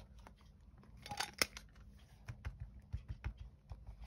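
Paper cards and a clear acrylic stamp block handled on a craft cutting mat. Scattered light taps, clicks and paper rustles, with a run of soft low knocks in the middle.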